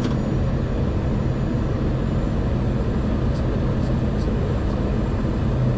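Steady rumble inside a Boeing 737-700 cockpit around landing: engine, airflow and runway noise, even in level, with a few faint ticks.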